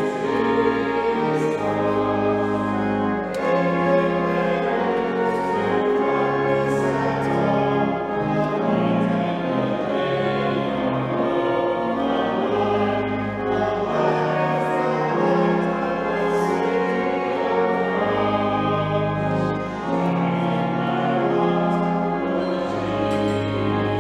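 Slow choral music: voices held on sustained chords over steady low notes, the chords changing every second or two.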